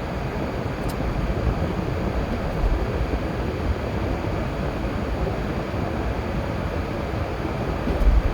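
Steady road and engine noise of a moving car heard from inside the cabin, with a low thump near the end.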